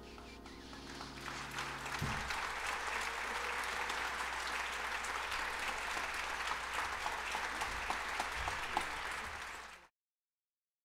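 Audience applause rises as the last notes of the saxophone and piano duo fade out in the first couple of seconds. The clapping holds steady, then cuts off abruptly near the end.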